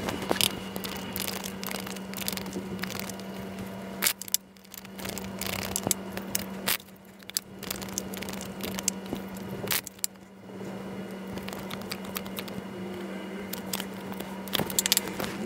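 Tarot cards being shuffled overhand and dealt onto a cloth: quick papery shuffling and flicking with frequent short clicks and slaps of cards. A steady low hum sits underneath.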